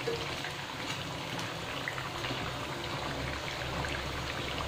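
Rice-flour-coated poha cutlets deep-frying in hot oil, the oil sizzling and bubbling steadily with small crackles. The cutlets are browned and crisp, done frying.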